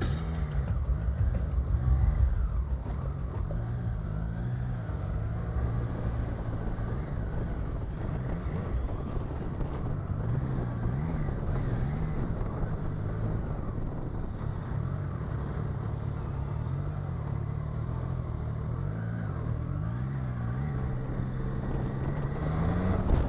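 Triumph Tiger 660's three-cylinder engine running while the bike is ridden slowly, its pitch rising and falling with the throttle, and climbing in a rev near the end.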